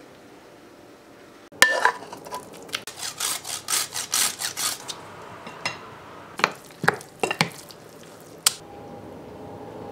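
Kitchen work sounds: a sharp knock, then a fine hand grater rasping in quick strokes for about two seconds, then a handful of sharp clicks and taps of a spoon against a glass bowl.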